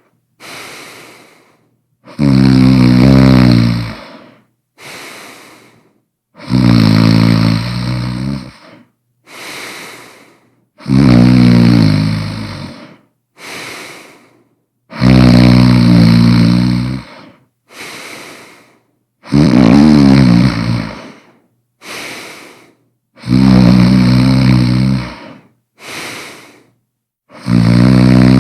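A person snoring loudly in a steady rhythm, about one snore every four seconds. Each long, pitched snore is followed by a shorter, softer breath.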